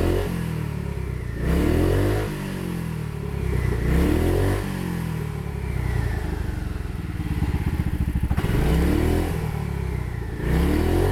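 Yamaha Majesty 250 scooter's single-cylinder four-stroke engine idling and being revved in four quick throttle blips, the pitch rising and dropping back to a steady idle each time. It revs up freely with a crisp throttle response and no backfire from the muffler, the sound of a healthy engine on fresh oil and a new spark plug.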